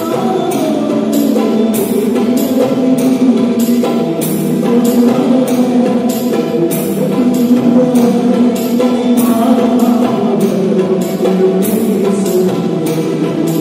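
Amplified Yamaha electronic keyboard playing a song over a steady electronic drum rhythm, with a few sharp beats a second, through PA speakers.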